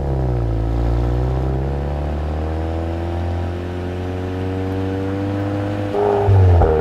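2025 Volkswagen Golf R's turbocharged 2.0-litre four-cylinder engine and exhaust idling steadily, with a brief, louder rev about six seconds in.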